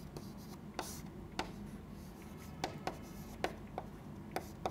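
Chalk writing numbers on a chalkboard: irregular sharp taps and short scratches as each digit and stroke is made, over a faint steady low hum.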